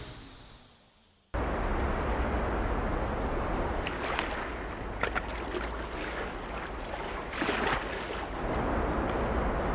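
The end of a music fade, about a second of silence, then lakeside ambience: a steady wash of wind and water with a low rumble underneath and faint high chirps now and then.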